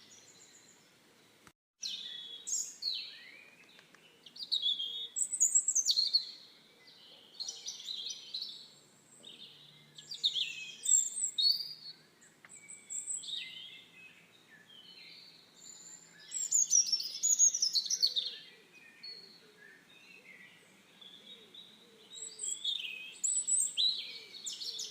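A songbird singing: varied, quick chirping and warbling phrases that come in bouts every second or two.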